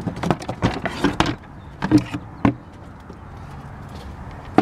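Plastic engine cover of a 2006 Honda Pilot being lifted off and handled: a quick series of sharp plastic knocks and clacks over the first two seconds or so, then only a faint steady background hum.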